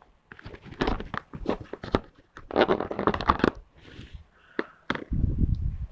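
Firm putty being squeezed, stretched and pulled apart by hand close to the microphone: two clusters of sticky, crackly clicks, then a louder low rumble of handling near the end.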